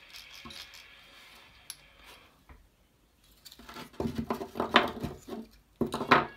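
Hard plastic parts of an RC truck's rear bulkhead and differential housing clicking and clattering as they are pulled apart and set down on a wooden bench. The loud clacks come in the last two and a half seconds.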